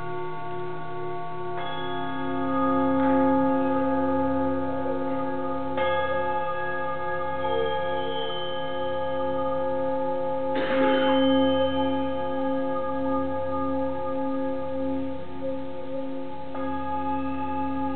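Metal singing bowls ringing in long, overlapping tones that waver and pulse, struck afresh four times so that new tones join the ringing.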